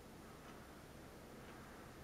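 Near silence with faint ticking, about one tick a second, twice.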